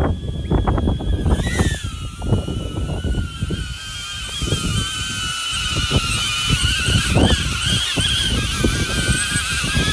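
DJI Avata drone hovering in gusty wind, its propellers giving a high whine that wobbles and shifts in pitch as the motors work against the gusts. Heavy wind buffeting and thumping on the microphone underneath.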